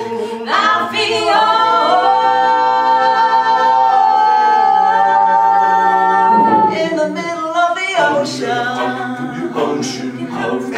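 A cappella vocal improvisation by four voices, two women and two men: a chord held from about two seconds in until past the middle, then shorter, moving sung phrases.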